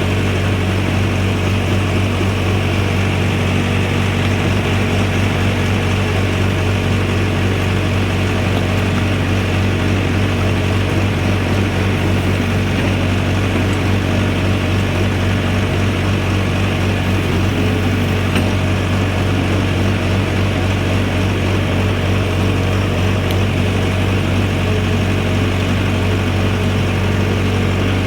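Backhoe loader's diesel engine running steadily, with a constant low hum and no revving, heard from on board the machine.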